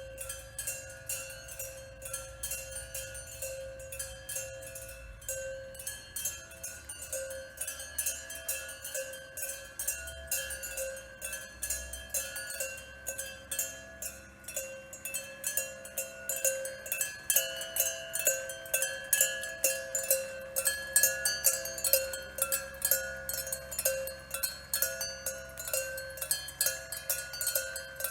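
Music of struck, bell-like tones repeating in a quick, even pattern of about two strikes a second over a few held pitches, growing louder about halfway through.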